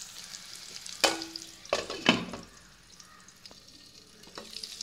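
Masala-coated chicken pieces frying in oil in a pan, a faint sizzle. A spatula stirs and knocks against the pan three times between about one and two seconds in.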